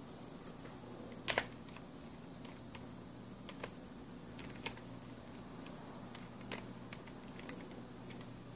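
Plastic pieces of a Wolf Tooth Cube, a skewb-type twisty puzzle, clicking now and then as it is turned in the hands: one sharper click about a second in, then a few light clicks spaced a second or so apart.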